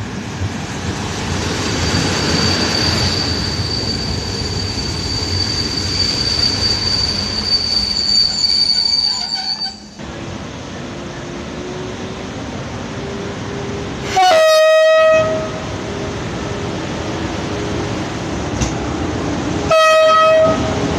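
Passenger coaches rolling past on the rails with a steady high-pitched squeal. Then a PKP EP09 electric locomotive runs in and sounds its horn twice, two loud single-pitched blasts about five seconds apart, the first a little over a second long, the second shorter.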